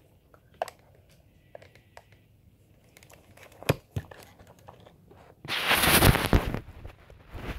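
Handling noise: a few light clicks and taps, then about a second of loud, rough scraping rustle, as a hand rubs against the phone's microphone.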